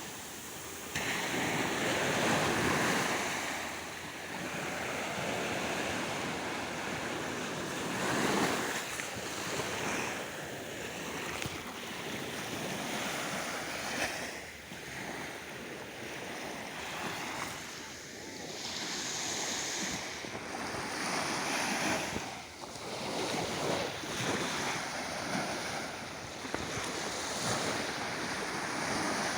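Waves of the Mediterranean Sea washing in and drawing back in swells every few seconds, with wind buffeting the microphone.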